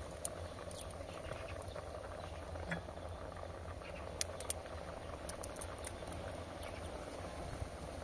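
Rice and water simmering in a pot: a quiet, steady bubbling with scattered small pops and ticks.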